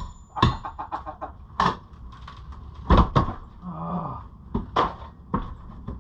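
Sharp knocks and bangs of demolition work on old wooden framing, about eight separate blows, with a quick rattle of clicks early and a short creak a little past halfway.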